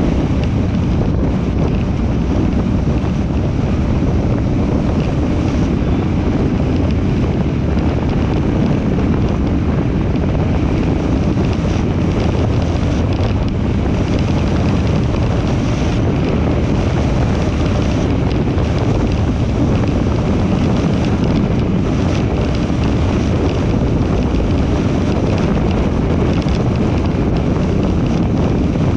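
Steady wind rush on the microphone with road and tyre noise from a car driving at speed along a highway.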